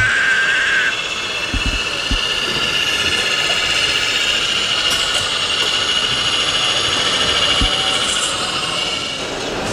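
Radio-controlled model truck's electric drive motor and gearbox whining as it drives slowly: a steady high-pitched whine over hall background noise, with a few faint low knocks.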